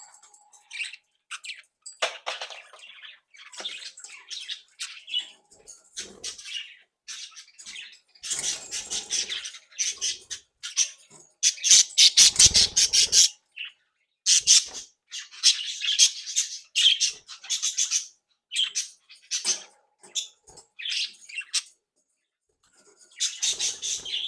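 Budgerigars chattering and squawking in bursts, with many short, high chirps and harsh calls. The loudest burst comes about halfway through.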